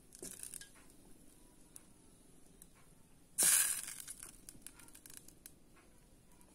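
Curry cooking in a steel pot, with scattered small clicks and pops and, a little over three seconds in, a short louder scrape of a spoon stirring in the pot.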